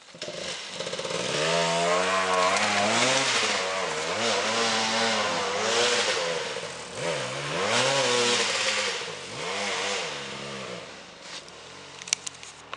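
Enduro dirt bike engine revving hard in repeated bursts under load on a steep climb, its pitch rising and falling several times. It dies down about eleven seconds in, and a few sharp clicks follow near the end.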